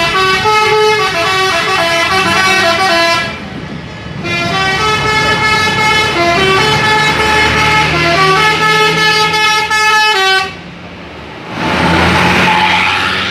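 Telolet bus horn, a set of tuned air horns, playing a stepping melody in two long phrases with a short break between them. A loud rush of noise without a tune follows near the end.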